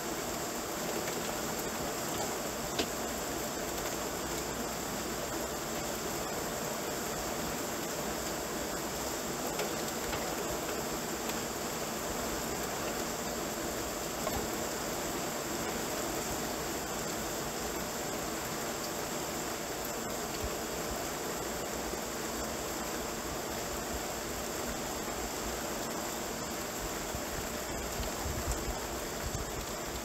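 Steady rainfall: an even, unbroken hiss with a few faint drop ticks.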